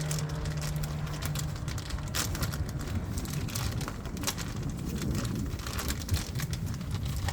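Plastic bag of birdseed mix being torn open by hand and handled, with irregular crinkling and rustling, over a constant low rumble. A steady low hum stops about a second and a half in.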